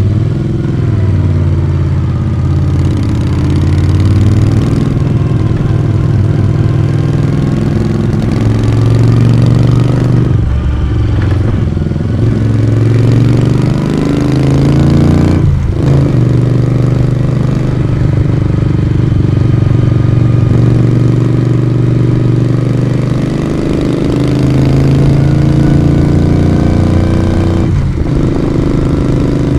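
Moto Guzzi V35's V-twin engine and exhaust running under way, the note rising and falling with the throttle. Three times the pitch climbs, breaks off briefly and comes back lower: gear changes.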